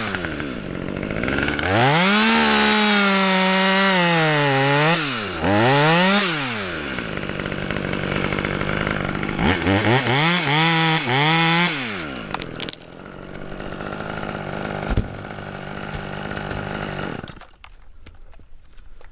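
Two-stroke chainsaw cutting through an ash trunk. It revs high under load in two long runs, the pitch sagging and rising as it bites, then drops back to idle. Near the end the engine is switched off.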